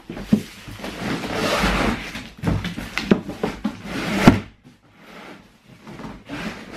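A large cardboard shipping box being tipped over and shifted on a tiled floor: cardboard scraping and rubbing, with several knocks and one loud thump about two thirds of the way through.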